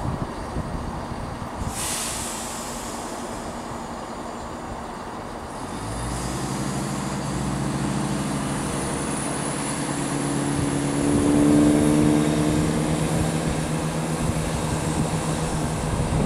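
Class 170 Turbostar diesel multiple unit: a short hiss of air about two seconds in, then from about six seconds in its diesel engines rev up, rising in pitch and getting louder as it takes power to pull away.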